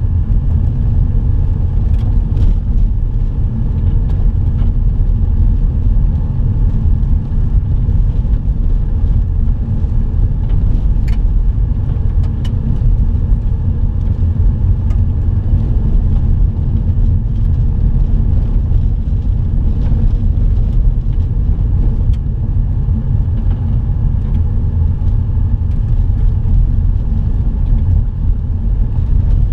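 Car driving on a dirt road, heard inside the cabin: a steady low rumble of tyres and engine, with a few faint short ticks.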